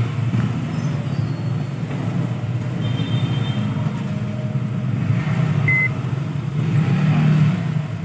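A steady low rumble throughout, with a single short electronic beep about six seconds in, from the microwave oven's keypad as a button is pressed.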